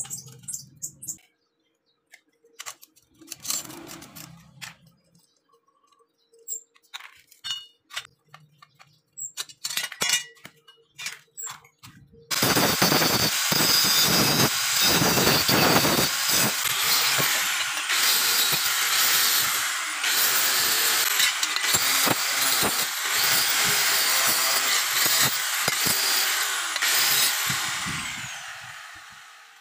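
A handheld angle grinder with an abrasive disc starts abruptly about twelve seconds in and grinds the welds on a galvanized steel bracket. It runs loud and steady for about fifteen seconds, then spins down and fades near the end. Before it there are only scattered light clicks and knocks of metal being handled.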